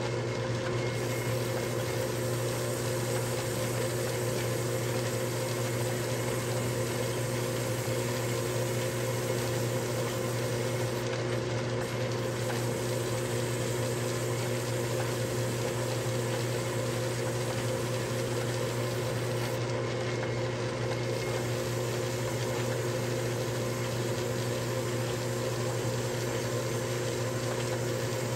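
Atlas TH54 lathe running steadily under its electric motor and belt drive, a constant hum with a hiss over it. A cloth strip is held against the spinning chuck.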